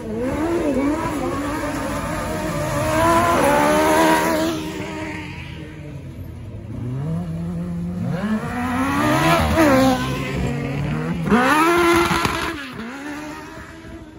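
Several single-seat autocross buggies racing on dirt, their high-revving engines rising and falling in pitch as the drivers accelerate out of corners and lift off again. The cars are loudest as they pass close by, about four seconds in and again around nine and twelve seconds.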